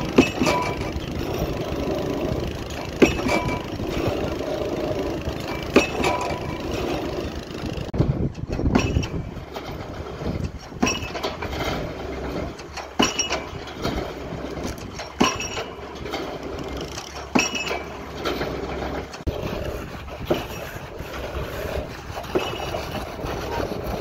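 Excavator-mounted pile hammer striking the top of a concrete pile: single sharp blows every two to three seconds over the steady running of the excavator's engine.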